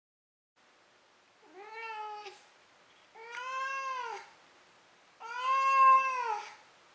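Cat meowing three times, each call rising then falling in pitch, the calls growing longer and louder, the third the loudest.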